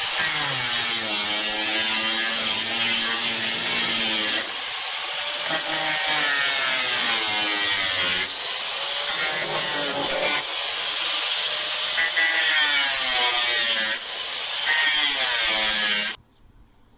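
Makita 115mm angle grinder with a 24-grit sanding disc stripping old paint off a wooden sash window frame: a loud motor whine with gritty scraping, its pitch sagging and recovering several times as the disc is worked against the wood. It cuts off suddenly near the end.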